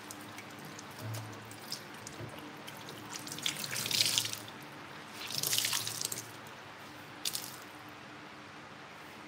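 Kitchen tap running into a stainless steel sink while a cloth is rinsed and squeezed under the stream. The water splashes louder twice, about four and five and a half seconds in, as hands work the cloth in the flow.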